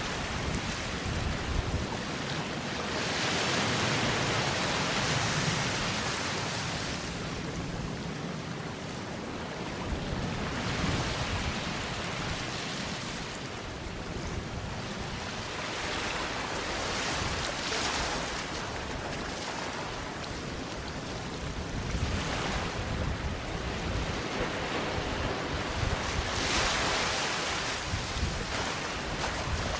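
Small sea waves washing onto a sandy beach, each swell rising and falling away about every five or six seconds. Wind rumbles on the microphone underneath.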